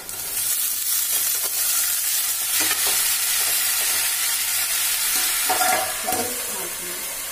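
Diced potatoes and peas hitting hot mustard oil in a kadhai and sizzling loudly, a steady frying hiss that sets in at once. A steel lid clinks onto the pan near the end.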